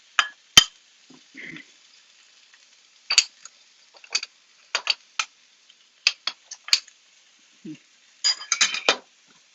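A cooking utensil clinking and scraping against a pan while tomato sauce is stirred: about a dozen sharp, irregular clinks, bunched together near the end.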